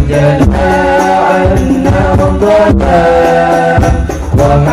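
Al Banjari sholawat played live: several male voices sing a devotional Arabic melody together into microphones. Hand-struck frame drums (terbang) beat the rhythm beneath them.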